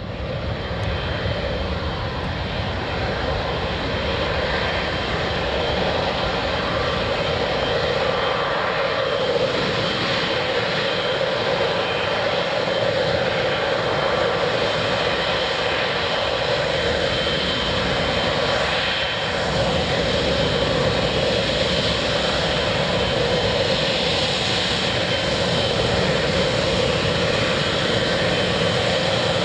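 Boeing 777-200LR's twin GE90 turbofan engines running at taxi power: a steady jet rumble with a thin high whine over it.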